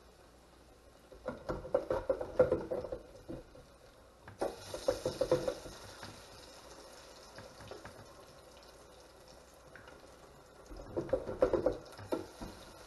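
Fork stirring thin beer batter and working perch fillets through it in a plastic bowl: three bursts of wet squelching and clicking of the fork against the bowl. A steady high hiss starts suddenly about four seconds in.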